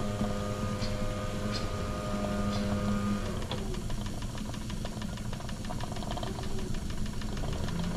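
Wilesco D21 toy live-steam stationary engine running quietly on about 28 psi of boiler pressure, with a fast, even ticking of its exhaust beats. A steady hum runs under it and stops about three and a half seconds in.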